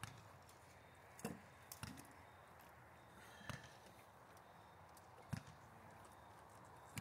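Rattan swords striking shields and armour in SCA armoured sparring: about five sharp, separate knocks spaced irregularly, with near quiet between them.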